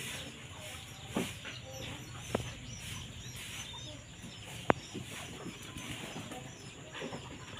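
Outdoor background of birds chirping, with three sharp clicks spread through it, the loudest about four and a half seconds in.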